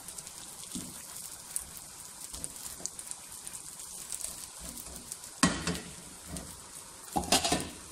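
Burger patties frying in a pan of oil: a steady, fine crackling sizzle. Two louder, brief noises break in about five and a half and seven seconds in.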